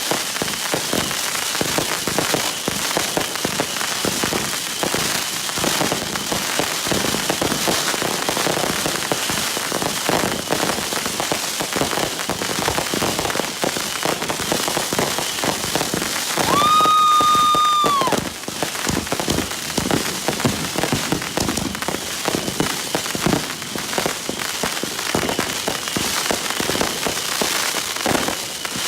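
Consumer fireworks in a finale: a dense, continuous crackle of many small pops and reports. A steady whistle-like tone sounds over it for about a second and a half past the middle.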